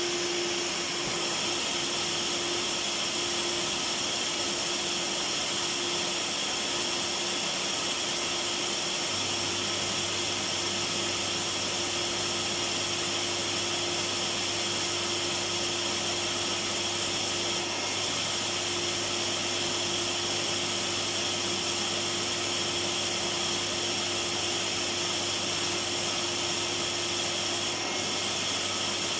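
Vacuum cleaner motor running steadily: an even whooshing noise with a constant whine. A low steady hum joins about nine seconds in.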